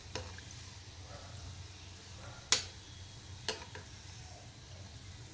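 Gulab jamun dough balls deep-frying in hot oil in a kadai, with a faint steady sizzle. A steel ladle clinks against the pan three times; the loudest is about halfway through.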